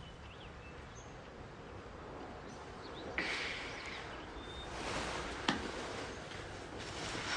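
Quiet room ambience with faint bird chirps early on. Later come three soft swishing rushes of noise, with a sharp click about five and a half seconds in.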